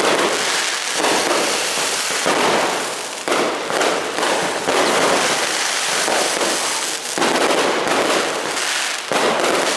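Fireworks and firecrackers going off in a dense, continuous barrage of rapid cracks and bangs, swelling and easing every second or two.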